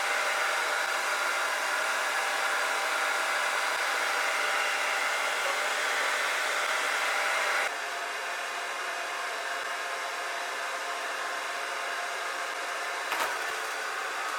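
Hair dryer blowing steadily, heating paint protection film on a car bonnet to soften its adhesive for peeling. Its level drops slightly about halfway through, with a light click near the end.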